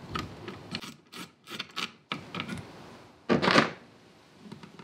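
Handling noise from wiring and fittings on a trolling-motor mounting plate: a few light clicks and taps, and a louder rubbing scrape about three and a half seconds in.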